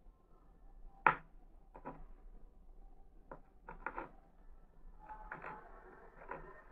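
Light, irregular clicks and taps of a metal fork against a small plastic letter-shaped cutter as melon is pushed out of it. The sharpest click comes about a second in.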